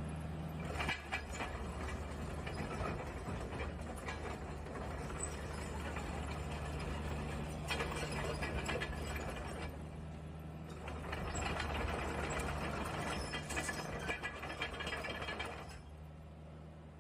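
Kubota KX165 mini excavator's diesel engine running steadily, with three spells of mechanical rattling and clatter as the machine travels and works, the longest from about eleven to sixteen seconds in.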